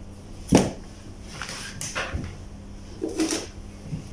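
Scattered clicks and knocks of wires, terminals and the fan heater's plastic housing being handled, the sharpest about half a second in and a few softer ones after, over a faint steady low hum.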